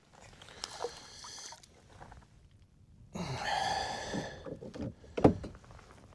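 Handling noises on a fishing kayak: rustling and a scraping sound, then one sharp knock about five seconds in.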